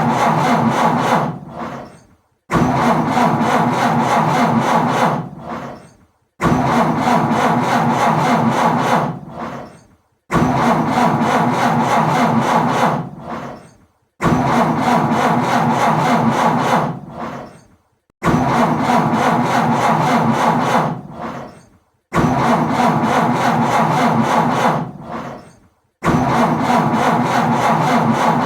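Car engine cranked on the starter without catching, in attempts that repeat about every four seconds. Each one starts abruptly, turns over for about three seconds and trails away before the next.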